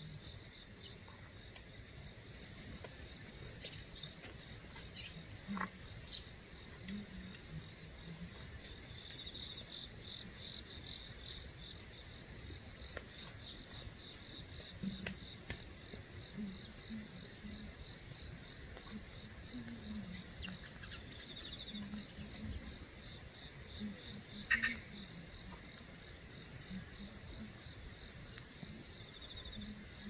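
Steady chorus of insects trilling, a continuous high-pitched pulsing buzz, with a few faint sharp ticks, the loudest about three-quarters of the way through.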